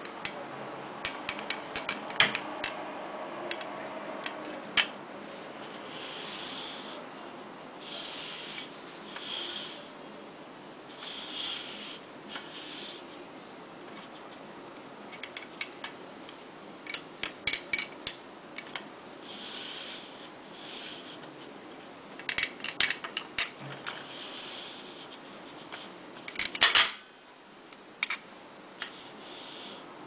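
Hard plastic parts of an early-1960s Remco sawing-a-lady magic toy clicking, tapping and rattling as they are handled, with short scraping rubs of pieces sliding against each other. A louder clatter comes near the end.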